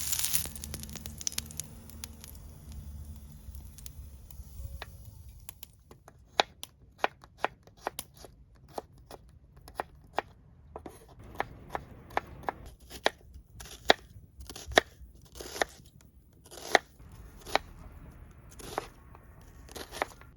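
Knife chopping food on a cutting board: a series of sharp, irregular strokes, roughly one or two a second, starting about six seconds in. A frying sizzle dies away in the first second or two.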